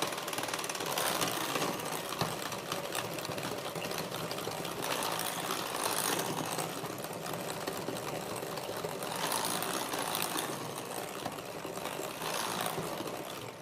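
Cordless KitchenAid electric hand mixer running steadily at a raised speed, its beaters working an egg into creamed butter and sugar for cookie dough in a glass bowl.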